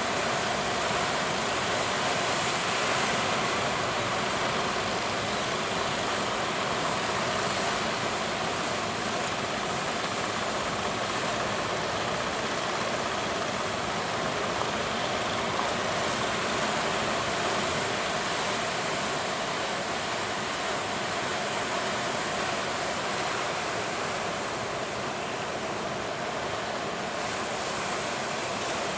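Big ocean waves breaking in a steady, continuous wash of surf, with wind on the microphone.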